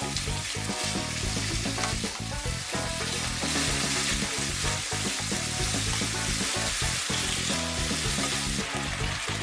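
Sliced pork sizzling steadily as it fries in oil in a frying pan, turned and stirred with tongs. Background music plays underneath.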